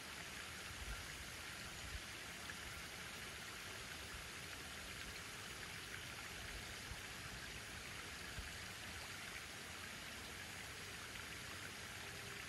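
Steady, even hiss of running water, with a few faint low thumps.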